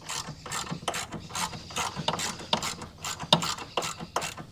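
Hand socket ratchet clicking in quick strokes, about four or five clicks a second, as it backs out a bracket bolt.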